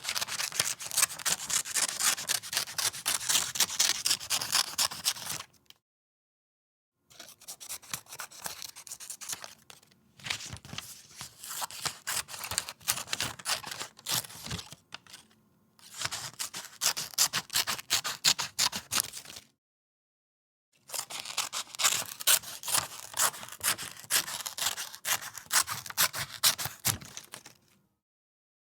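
Scissors cutting paper in several runs of quick, repeated snips, each run a few seconds long with short silent pauses between them.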